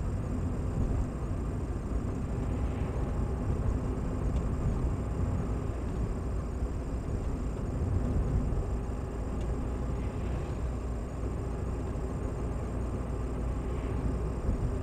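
Car cabin noise while driving slowly, heard from a dashcam inside the car: a steady low rumble of engine and tyres on the road at about 33 km/h.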